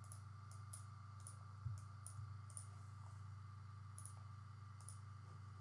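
Faint, scattered clicks of a computer mouse, about ten at irregular spacing over a low steady electrical hum.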